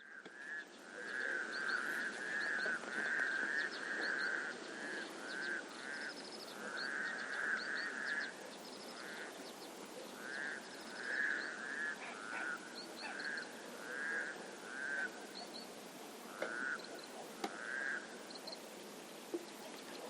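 Frogs croaking in a chorus of short repeated calls, packed closely together at first and thinning out to separate calls about halfway through, over a steady outdoor hiss.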